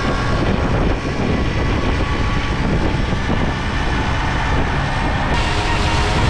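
Tomos A3 moped's small two-stroke engine running steadily while riding, mixed with heavy wind noise on the microphone. The hiss turns abruptly brighter about five seconds in.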